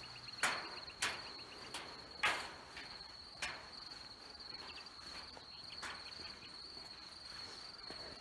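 Cricket chorus: a steady, high-pitched, finely pulsed trill. A few light knocks stand out over it in the first half.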